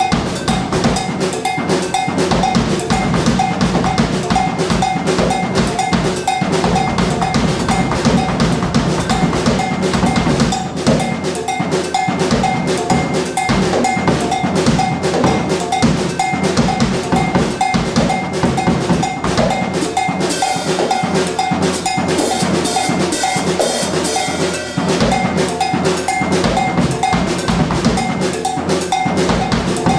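Drum kit played continuously in a dense, busy groove, with a ringing metallic bell note repeated through it; a bright cymbal wash comes in about twenty seconds in and lasts a few seconds.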